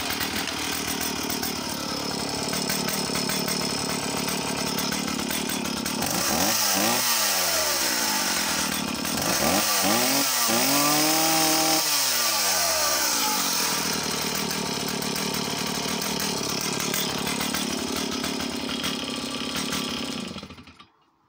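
Stihl 045 AV 75 cc two-stroke chainsaw starting on a pull of the starter cord and settling into a steady idle. About six seconds in it is blipped several times, then revved up and held high for a few seconds before dropping back to idle. It is shut off shortly before the end.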